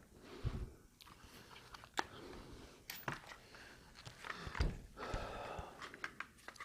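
Scattered light clicks, knocks and rubbing from plastic stock parts and a carbine being handled, with a few sharp clicks spread through.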